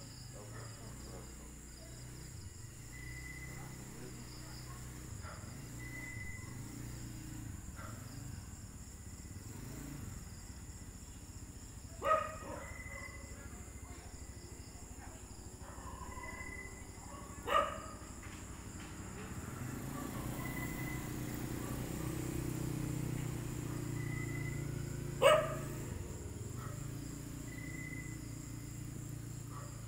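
A dog barking, three single barks several seconds apart, about twelve, seventeen and twenty-five seconds in. Between them, night insects keep up a steady high drone with short repeated chirps.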